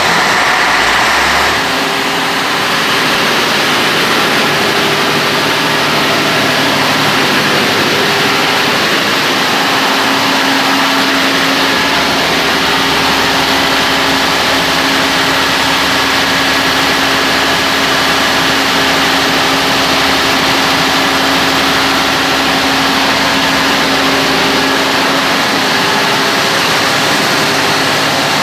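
Large 250 kVA diesel generator running steadily just after starting, a loud even engine drone with a steady hum.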